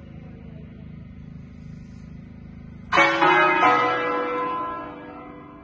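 Church bells ringing a festive peal. About three seconds in a bell strikes loudly and rings on, slowly fading.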